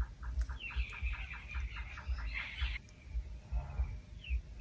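Night-time wild animal calls: a fast, even run of pulsed calls at about four to five a second, with a higher chattering chorus over it. Both stop about three seconds in, and a few short falling chirps follow near the end. Low thumps on the microphone run underneath.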